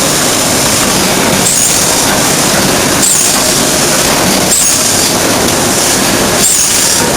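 Ring rolling mill running: a loud, steady mechanical rumble and grinding, with a short high squeal of metal on metal recurring about every one and a half seconds.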